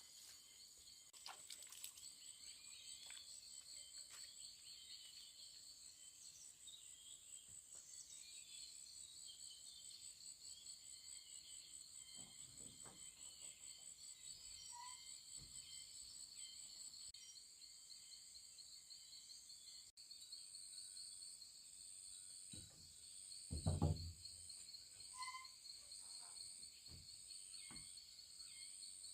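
Faint, steady chorus of insects trilling in fast, even pulses, high-pitched. A few soft knocks, with one louder thump near the end.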